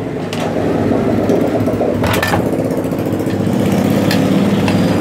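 A steady engine-like motor drone, with a few light metallic clicks about two seconds in and near the end.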